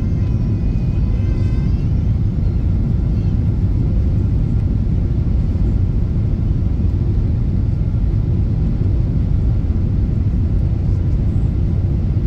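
Steady low rumble inside the cabin of a Boeing 777-200ER on final approach, with flaps extended: engine and airflow noise heard from a window seat over the wing.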